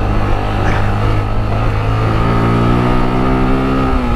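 Motorcycle engine running on a dirt track under steady throttle, its note climbing a little after about two seconds and dipping briefly near the end.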